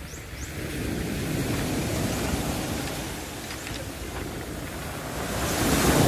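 Sea waves washing in against a rocky shore. The surf swells up about a second in, eases off, and surges louder again near the end.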